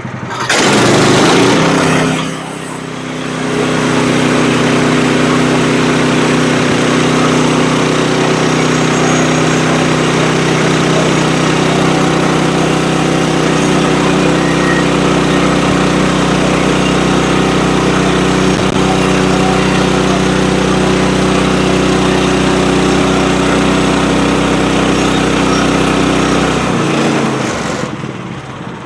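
Woodland Mills band sawmill's gas engine throttled up, easing off briefly, then running steadily at full speed as the blade saws through a red cedar log, dropping back toward idle near the end.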